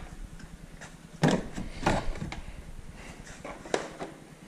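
Knocks and scuffs from handling a removed plastic side trim panel as it is carried and laid down on a metal stand: one sharp knock about a second in, then a few lighter ones.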